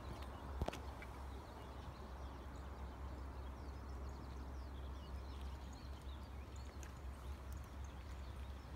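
Quiet outdoor background at a railway platform: a steady low rumble throughout, one sharp click a little under a second in, and faint, scattered high chirps and ticks.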